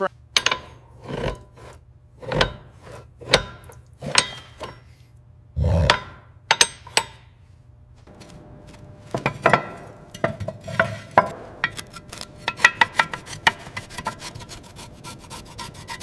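Scraping and rasping strokes of a hand tool worked against a hard surface. The strokes are spaced out at first and come quicker and closer together in the second half.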